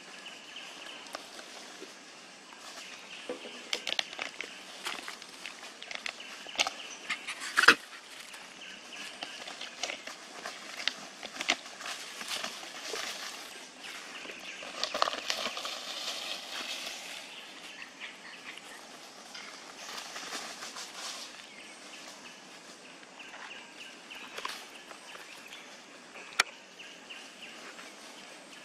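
Rustling of dry leaf litter with scattered sharp clicks and snaps. The loudest snap comes about a quarter of the way in and another near the end. There is a busier stretch of rustling a little past halfway.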